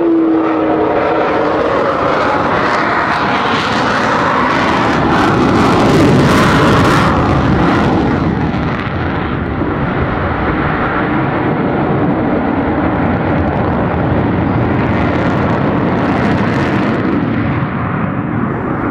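Jet noise from Avro Vulcan XH558's four Rolls-Royce Olympus turbojets as the delta-wing bomber flies a banking display pass overhead. It is loud, swells to its loudest about six seconds in, then eases slightly and holds.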